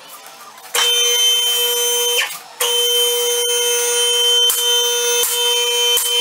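Two-post car lift's electric hydraulic pump running with a steady high whine as it raises the car, starting about a second in, pausing briefly, then running on. From about halfway through, the lift's safety locks click past their notches roughly every three-quarters of a second.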